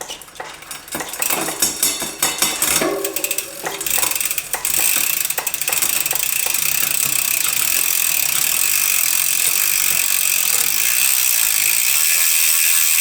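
Mountain bike drivetrain with a newly fitted SRAM GX AXS electronic rear derailleur and chain, turned by hand to test the shifting. Irregular clicking and rattling comes first as the chain shifts across the cassette, then from about five seconds in a steady high ratcheting buzz of the spinning rear wheel and chain.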